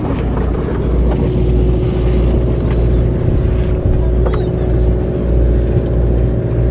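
Sportfishing boat's engine running with a steady low drone.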